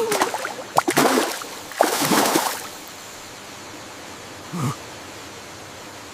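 Water splashing in several sharp, noisy bursts over the first two and a half seconds, then the steady rush of a waterfall, with one brief gurgle a little past four seconds in.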